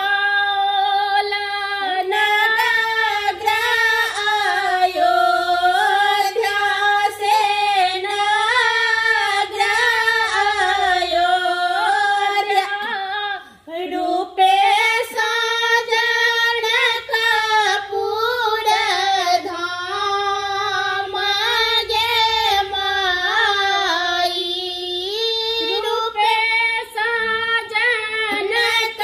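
Two women singing a Maithili wedding folk song together without accompaniment, with a short break for breath about halfway through.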